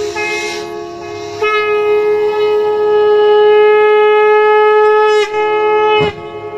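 Wind-instrument music over a steady drone: a reed-like melody line holds long sustained notes, one stretching for nearly four seconds, then breaks off about six seconds in.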